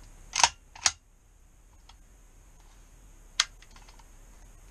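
Sharp metallic clacks from the steel action of a Well AKS-74U gas blowback airsoft replica being worked by hand: two in the first second and a third about three seconds later. A really metallic-sounding mechanism.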